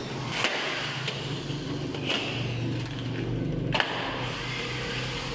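A motor vehicle engine running steadily on the street outside, with several sharp clicks and knocks from hands working on the aluminium door frame, the sharpest about four seconds in.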